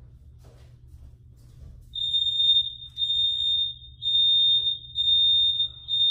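Fire alarm going off: a shrill electronic tone beeping about once a second, each beep a little under a second long, starting about two seconds in.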